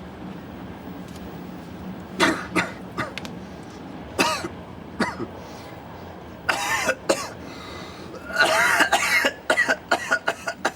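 A person coughing: a few short single coughs first, then longer, denser bouts of coughing and throat clearing that build into a fit near the end.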